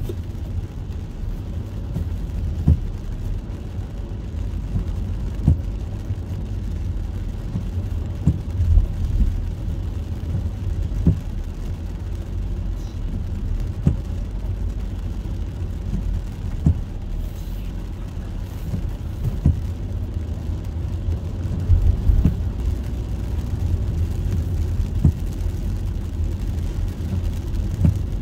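Inside a car's cabin, a steady low rumble of engine and wet road while driving slowly in rain, with a soft thump about every three seconds from the windshield wipers sweeping.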